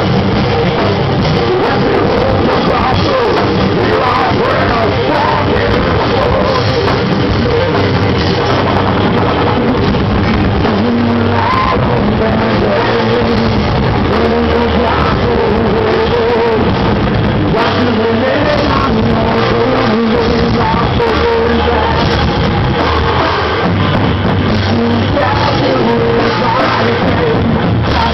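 Live rock band playing loudly, with a singer's voice over the band.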